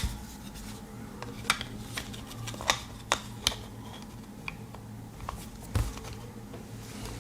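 A pocket knife blade and a small carbide-and-ceramic pull-through knife sharpener being handled and worked: a series of irregular sharp metallic clicks and short scrapes.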